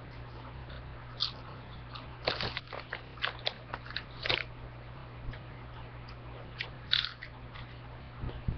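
A person chewing crunchy chips with salsa close to the microphone: irregular crackling crunches every second or so, over a steady low hum.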